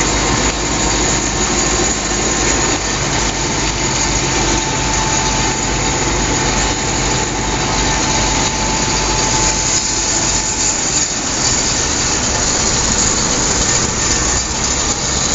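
1943 Volkswagen Schwimmwagen Typ 166's air-cooled flat-four engine running steadily as the amphibious car travels on the water, heard from the driver's seat, with a steady rushing noise over it.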